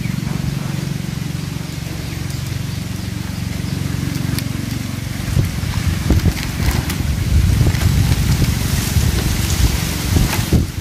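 Wind rumbling on the microphone, steady at first and turning gusty about halfway through, with the crinkle and rustle of a clear plastic sheet being handled and lifted over a bamboo kite frame.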